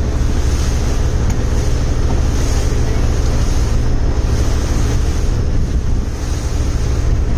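Motorboat engine running steadily under way, a constant low rumble, with wind rushing over the microphone in gusts.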